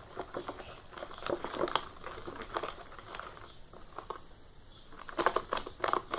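Freshly activated clear glue slime being stirred in a transparent pot: irregular sticky clicks and crackles, louder near the end, as the slime starts to firm up.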